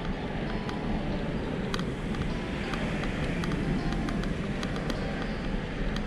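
Wind buffeting the microphone of a bike-mounted camera and tyres rolling on a paved path while cycling, a steady rumble with a few faint clicks.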